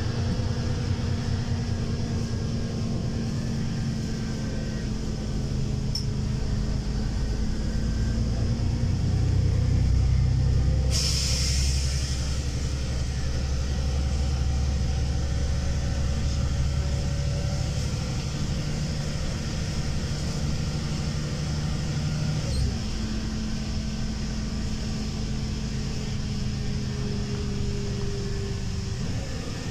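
LiAZ 5292.22 city bus under way, heard from inside the passenger cabin: steady engine and drivetrain hum with road rumble. A short hiss of compressed air comes about eleven seconds in, and the engine's pitch shifts about two-thirds of the way through.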